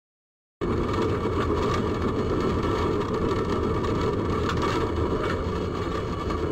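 Tram running along street track at speed, heard from inside the driver's cab: a steady running rumble that cuts in about half a second in.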